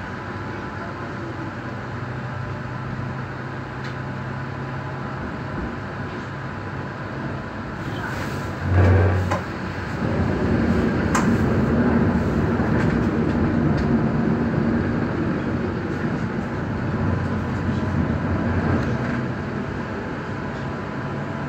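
Stuttgart Stadtbahn light-rail car running, heard from inside the passenger compartment: a steady hum with wheel-on-rail rumble. A loud, short, low thud comes about nine seconds in, and the running gets louder from about ten seconds in.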